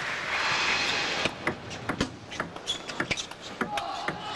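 Crowd noise in a large hall dies down about a second in, then a rally begins: a celluloid table tennis ball clicking back and forth off the rubber of the bats and the table top, about two hits a second.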